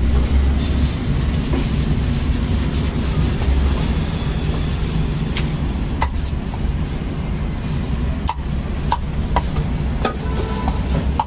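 Steady low rumble of street traffic. In the second half come a few sharp knocks, about two a second near the end, as a cleaver chops crisp-skinned roast pork belly on a thick wooden chopping block.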